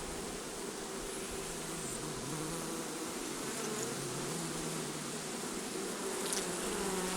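Honeybees buzzing in a steady hum of many wings, with low tones that drift up and down as bees fly close by the open hive. The colony is one the beekeeper judges to have no queen.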